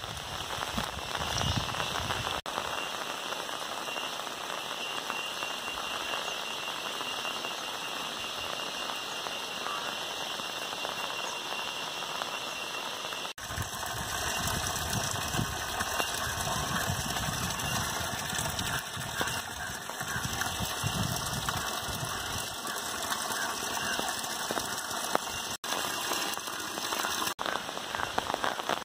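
Monsoon rain falling steadily on trees, foliage and tiled roofs, a continuous hiss of raindrops, broken by a few very short dropouts.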